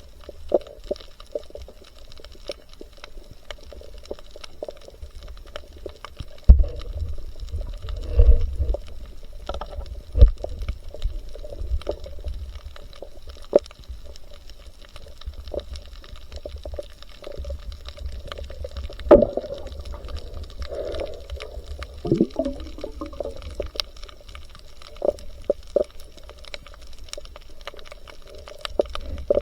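Water moving around a camera during night spearfishing: muffled sloshing and bubbling under a low rumble, with many scattered sharp clicks and heavier thumps and swishes at about six and a half, eight, ten, nineteen and twenty-two seconds in.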